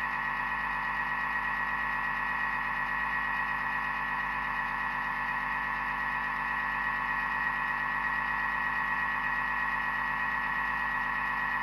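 Thermomix motor running steadily with its butterfly whisk, beating egg whites for another minute because they are not yet firm enough. A constant hum with a high whine on top.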